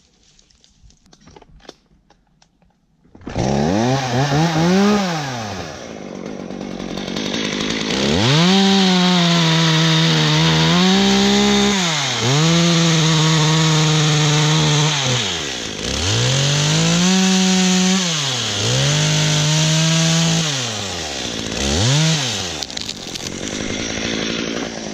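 Two-stroke chainsaw starting up about three seconds in, revving once, then run at high revs for long stretches as it cuts wood, the throttle let off and opened again five or six times; it drops back toward idle near the end.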